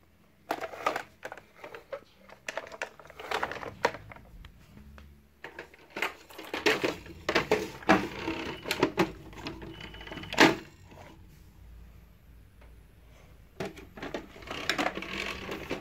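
Plastic toy tow truck handled and rolled across a tiled floor: irregular clicks, knocks and clatters, with a quieter gap of a couple of seconds before a last spell of clatter near the end.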